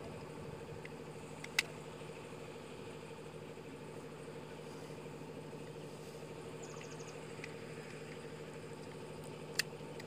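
A steady engine-like hum at one unchanging pitch, with two sharp clicks, one about a second and a half in and one near the end.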